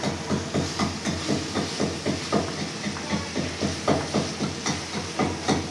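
Wooden spoon stirring chicken and onions in an aluminium karahi, scraping against the metal in quick even strokes about three a second, over a steady frying hiss.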